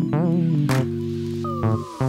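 Reggae background music with guitar and bass, and a sharp drum hit about two-thirds of a second in.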